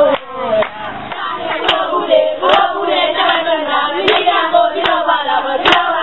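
A group of children singing a Gambian children's song together, with sharp hand claps about once a second.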